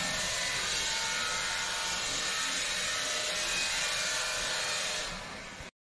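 A power tool running steadily with a hissing, rushing sound, easing off near the end and then cut off abruptly.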